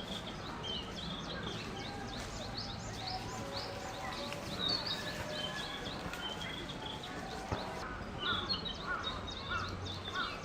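Male narcissus flycatcher singing, its short whistled phrases mixed with many quick chirps throughout.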